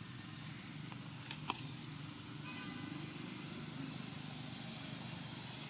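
Steady low hum of a running motor, with a single sharp click about one and a half seconds in.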